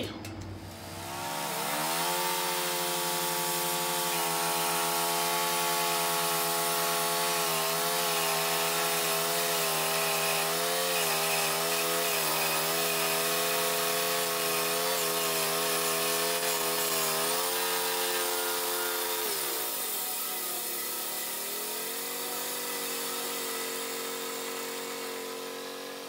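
Portable band sawmill running: its gasoline engine revs up about a second and a half in and holds steady while the band blade cuts through a rotten tree root. Near the end the engine speed falls away, then climbs back up.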